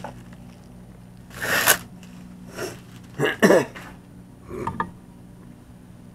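Plastic Priority Mail envelope rustling and crinkling in a few short bursts as it is handled, over a steady low hum. A brief throat or voice sound comes about three and a half seconds in.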